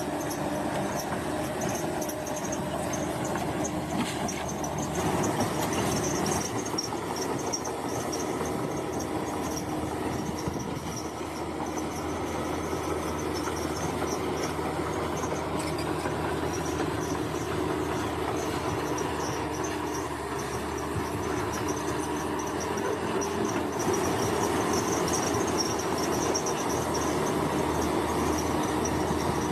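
Crawler bulldozer at work: its diesel engine runs steadily under load along with the metallic grinding of its steel tracks.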